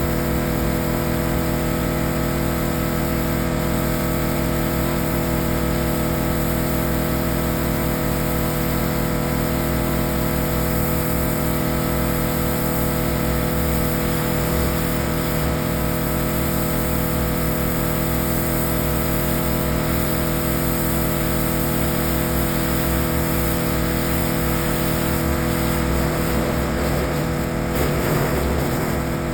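Gas-engine pressure washer running steadily, its small engine holding one constant pitch under a steady hiss.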